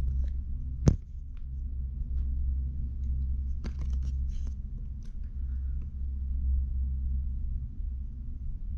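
Steady low rumble of a ride on a single-seat open chairlift, with one sharp click about a second in and a brief clatter of clicks about halfway through.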